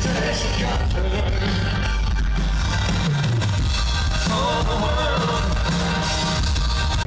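Loud live band music with a singer, coming over an open-air festival stage's PA and heard from within the crowd.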